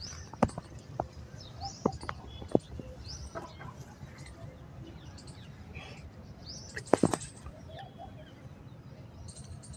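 Mango leaves and a branch rustling as they are handled, with several sharp clicks and a denser burst of them about seven seconds in. Faint bird chirps sound in the background.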